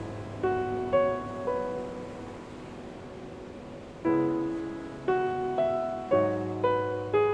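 Slow, gentle piano music: single notes and chords struck one at a time, each ringing and fading away, with a pause of about two seconds midway before the notes resume about twice a second.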